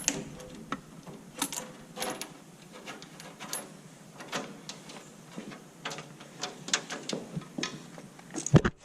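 Irregular light clicks and metallic taps from hands working a speedometer cable down behind a tractor's dash panels, with a louder knock near the end.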